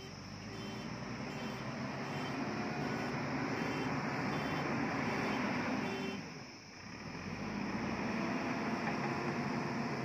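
JCB backhoe loader's diesel engine running under load while it reverses, its reversing alarm beeping about twice a second. About six seconds in, the beeping stops and the engine drops briefly, then picks up again as the machine drives forward.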